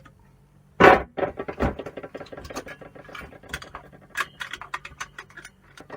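Metal parts from a scrap combi boiler being handled. A sharp metallic clatter comes about a second in, then a fast run of small clicks and rattles that thins out toward the end.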